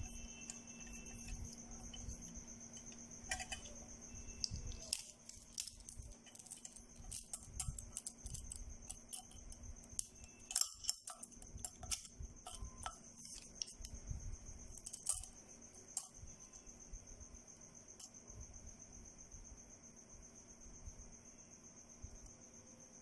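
Handling noise of metal fog-lamp housings, their steel mounting brackets and a steel tape measure: scattered clicks and light metallic knocks, busiest in the middle, over a steady high-pitched trill and a faint low hum.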